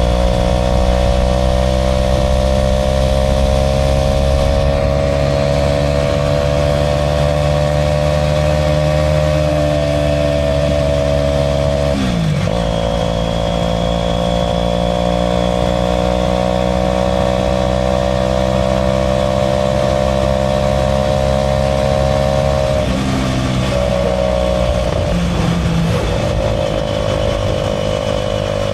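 Aprilia RS4 125's single-cylinder four-stroke engine running under way at a steady cruising speed, the pitch drifting slowly. About twelve seconds in the note breaks and drops, as in a gear change, and near the end the revs change again.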